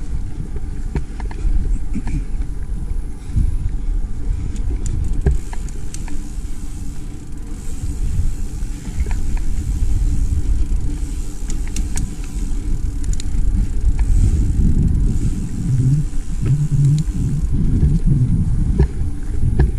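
Mountain bike rolling along a dirt singletrack: steady wind buffeting on the camera microphone and tyre rumble, with scattered clicks and rattles from the bike over bumps.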